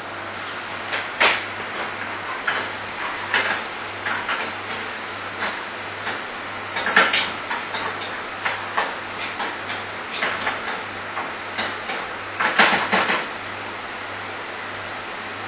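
Metal ladle clanking and scraping against a wok while stir-frying, in irregular strokes that stop about two seconds before the end, over a steady rushing background noise.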